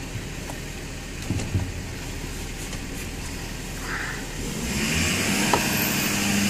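Ford 6.7 L Power Stroke V8 turbodiesel idling, with a few light knocks in the first two seconds. About four and a half seconds in, the engine computer raises the idle by itself during a scan-tool engine-running self-test: the engine note climbs and grows louder, with a faint high whistle rising.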